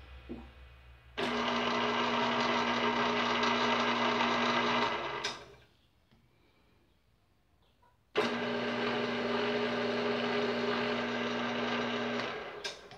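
BV20L mini bench lathe running under power, its motor and spindle giving a steady hum. It starts suddenly about a second in and runs about four seconds, then stops with a click. It starts again about eight seconds in and runs about four more seconds before stopping with a click.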